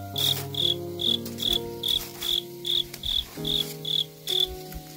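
A cricket chirping in an even rhythm, about two to three chirps a second, and falling silent near the end. Soft background music with held notes plays underneath.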